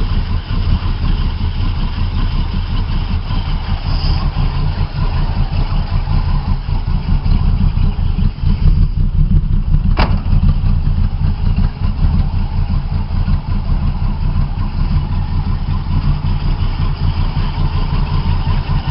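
Jeep engine with a Quadrajet four-barrel carburetor idling steadily while still cold with the choke off, running without a cylinder miss now that its spark plugs are regapped and wires cleaned. A single sharp click about halfway through.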